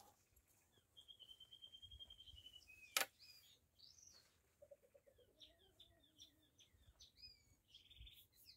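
Faint birds chirping in the background: a long trilled high note, then many short falling chirps. About three seconds in comes a single sharp click, the loudest sound.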